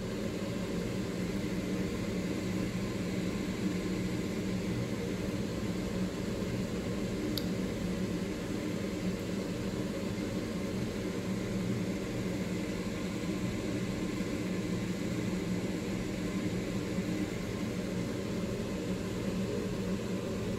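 Steady low mechanical hum and whir of an electric motor-driven appliance, with one faint tick about seven seconds in.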